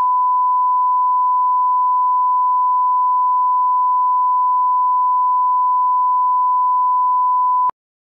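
Steady 1 kHz line-up test tone, the 'bars and tone' reference signal that runs with colour bars at the head of a broadcast tape. It holds one unchanging pitch and cuts off abruptly with a click near the end.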